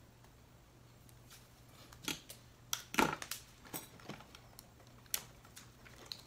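Small clicks, taps and rustles of hands working with wires, tape and a camera body, loudest in a cluster around the middle.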